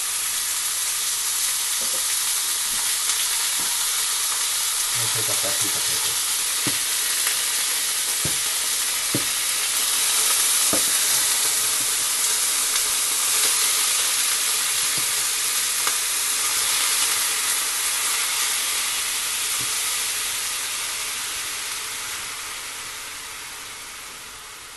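Minced pork frying in hot olive oil in a frying pan: a steady sizzle, with a few short knocks of a wooden spatula breaking up and turning the meat. The sizzle fades over the last few seconds.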